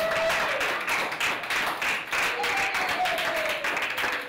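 A small crowd applauding, many hands clapping quickly and unevenly, with a few voices calling out and cheering over the clapping.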